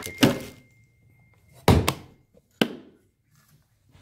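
Hard plastic lid of a Magellan insulated dry box shut with a heavy thunk, followed by a sharper, shorter knock about a second later.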